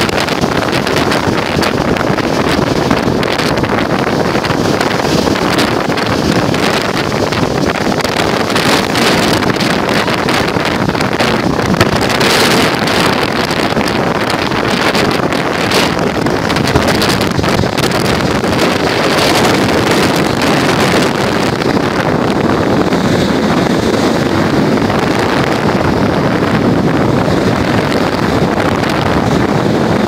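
Stormy Baltic Sea surf breaking and washing up a sandy beach, with strong wind blowing across the microphone, in a loud, steady rush of noise.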